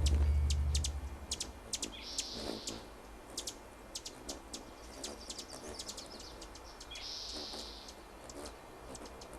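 A low musical drone cuts off about a second in, leaving scattered sharp chirps and clicks and two short hissing high calls several seconds apart: a bird and insect soundscape.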